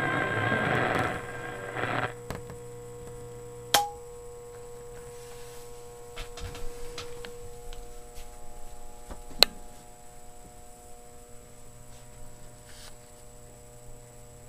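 Station audio from a 1937 Philco 37-84 four-tube radio drops away about a second in, leaving the set's steady low hum. A few sharp clicks break through, the loudest about four and nine seconds in.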